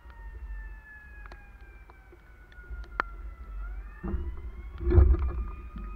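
Faint fire truck siren wailing, its pitch slowly falling and then rising again about three and a half seconds in, over a steady low rumble. From about four seconds in, a louder low rumble with knocks, loudest about five seconds in.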